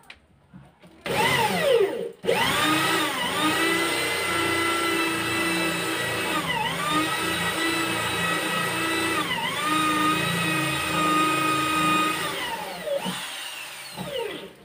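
Electric drill boring into the edge of a wooden door for the doorknob latch. The motor whines in a short burst about a second in, then runs steadily for about ten seconds with its pitch dipping twice as the bit bites, and winds down near the end.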